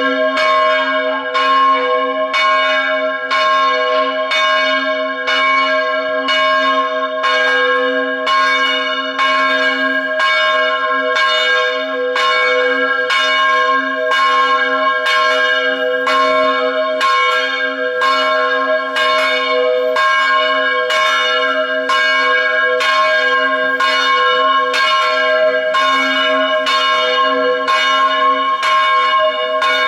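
Church bell rung in quick, even strokes, about three every two seconds, each stroke ringing on into the next.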